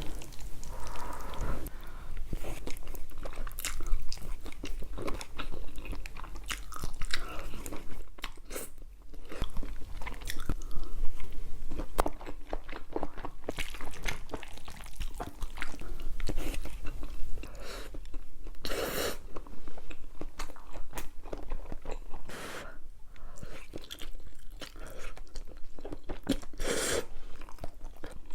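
Close-miked eating sounds: biting and chewing noodles topped with pork intestines and Vienna sausages, with many irregular wet mouth clicks and a few louder bites.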